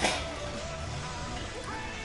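Background music, with a sharp clatter right at the start.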